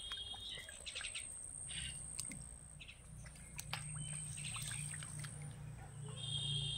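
Birds chirping outdoors: short scattered calls, with a brief trill at the start and another near the end, over a steady high whine and a low hum.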